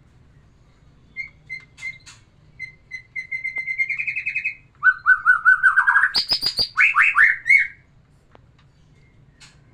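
White-rumped shama singing one phrase of about six seconds: a few short whistled notes, a rapid trill that rises in pitch, a lower trill, a quick burst of sharp clicks, then a few falling notes.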